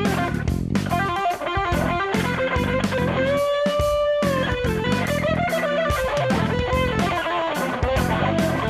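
Electric guitar playing a melodic lead line with bent notes, one note held for about a second near the middle, over a backing of bass and drums.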